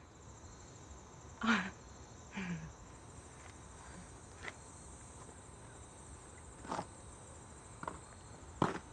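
Steady high-pitched chirring of insects, growing stronger about three seconds in. Two short vocal sounds come about one and a half and two and a half seconds in, and a few faint clicks follow, the sharpest near the end.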